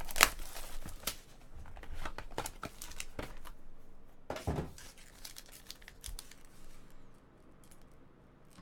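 A trading card pack's wrapper being torn open and crinkled, with cards and packaging handled in quick crackling rustles that thin out toward the end.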